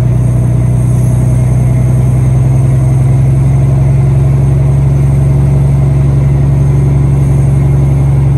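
A vehicle engine running loud and close, a steady low drone that holds one pitch throughout.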